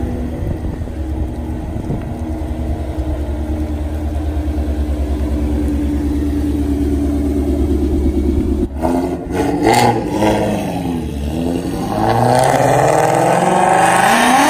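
Ford Shelby GT350's 5.2-litre flat-plane-crank V8 idling loudly and steadily. About nine seconds in it is blipped up and down as the car moves off, then revs in a rising pull near the end as it accelerates away.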